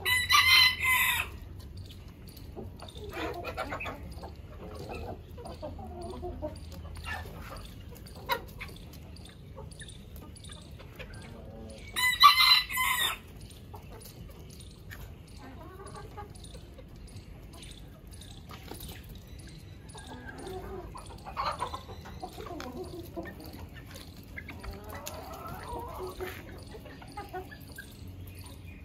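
Rooster crowing twice, about twelve seconds apart, each crow a little over a second long. Hens cluck softly in between.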